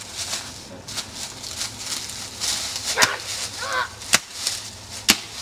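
Rustling and crunching in dry fallen leaves, with two short yelps about three seconds in and two sharp knocks near the end.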